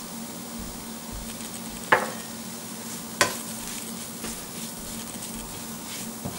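Sliced onions and chilli powder frying in oil in a stainless steel pan, sizzling steadily as a wooden spatula stirs and scrapes through them. The spatula knocks sharply against the pan twice, about two and three seconds in, with a few lighter taps.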